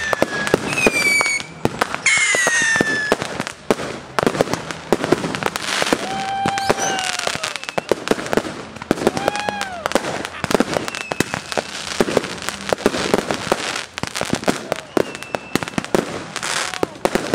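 Fireworks going off in a dense, continuous run of bangs and crackles, with no real pause.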